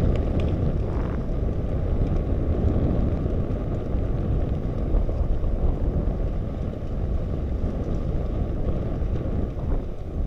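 Steady low rumble of wind buffeting the camera's microphone while riding a bicycle, with road noise from the ride underneath.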